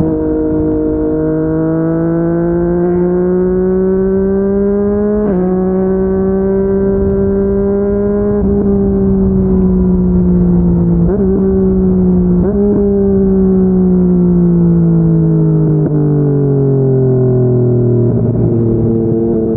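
Yamaha MT-09's three-cylinder engine through a Yoshimura R55 slip-on exhaust, riding on the road. Revs rise gently, with several quick gear changes about 5, 11 and 12 seconds in. The engine note then falls steadily as the bike slows, and a downshift near the end lifts the pitch again.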